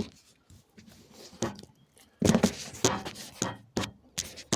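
Irregular clicks, knocks and rustling of a small plastic washing-machine inlet filter being handled and worked with the hands, busiest in the second half.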